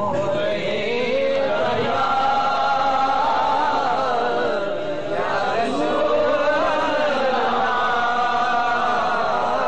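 A boy's solo voice, unaccompanied, chanting devotional praise verse (naat) into a microphone in long, wavering melodic phrases.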